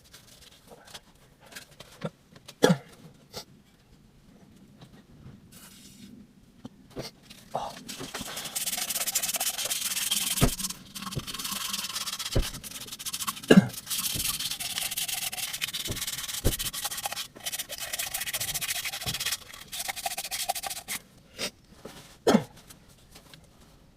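Abrasive scrubbing or sanding in long stretches from about eight seconds in until about twenty-one seconds, broken by short pauses. Several sharp knocks fall in between.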